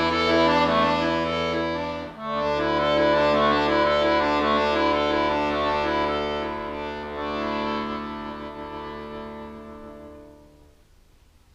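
Chromatic button accordion playing sustained chords over held bass notes, with a brief break about two seconds in. The chords then grow softer and fade out to silence about ten seconds in.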